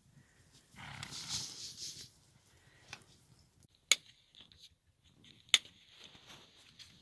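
A horse snorting, a breathy blow lasting about a second and a half, followed by two sharp clicks about a second and a half apart.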